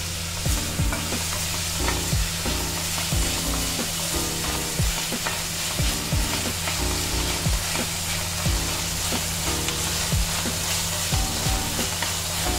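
Chopped onion and tomato frying in hot oil in a stainless steel kadai: a steady sizzle, with a spatula stirring and scraping across the pan in frequent short knocks.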